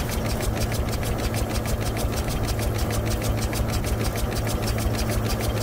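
Single-cylinder steam engine running steadily with its flywheel turning, giving a rapid, even beat of several strokes a second over a steady low hum.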